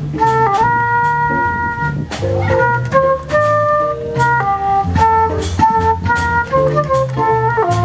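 Chromatic harmonica playing a held, organ-like jazz melody over a drum kit's steady beat, a line of low notes and a small strummed guitar.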